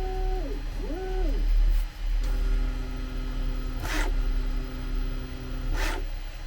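Bambu Lab A1 Mini 3D printer's stepper motors whining through its first-start calibration moves: two quick moves whose pitch ramps up, holds and ramps back down, then a steadier hum of several tones. Two brief hissing swooshes come about four seconds in and near the end.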